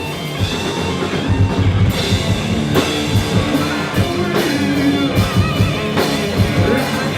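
Rock band playing: a drum kit keeping a steady beat under electric guitar, with heavy crashes every second or so.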